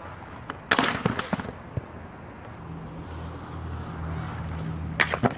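Inline skates clacking and scraping against a concrete ledge in a cluster of sharp knocks about a second in, during a hard spin soul grind attempt. After that, skate wheels roll over concrete with a steady low rumble, and a couple more sharp clacks come near the end.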